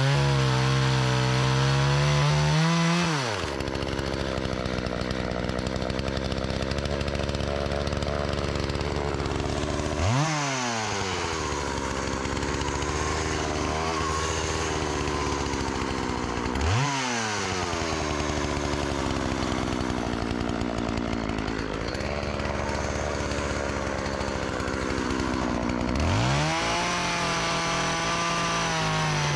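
Partner 405 two-stroke chainsaw running at full throttle through a log, then dropping to idle about three seconds in. It is blipped up and back down twice, then opened up to full throttle again and held there near the end, running without stalling now that its stall-on-throttle fault has been fixed.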